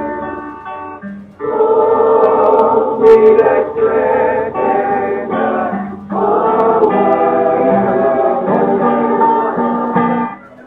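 A song: voices singing long held notes over instrumental backing, with short breaks between phrases.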